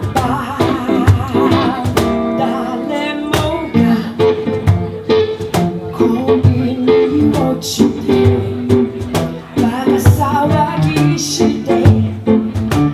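Live acoustic band: a woman singing into a microphone with vibrato, accompanied by acoustic guitar and steady hand-played cajon hits.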